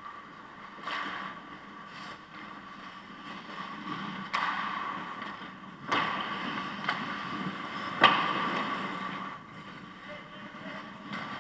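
Ice hockey play around the goal: skates scraping and carving on the ice, broken by several sharp knocks of sticks and puck. The loudest knock comes about eight seconds in.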